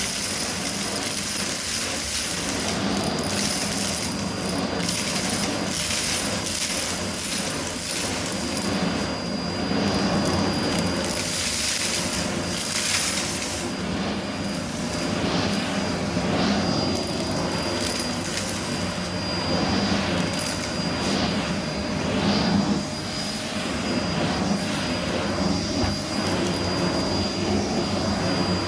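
Vacmaster Captura vacuum cleaner running steadily with a high whine, with frequent crackles and rattles of debris being sucked up.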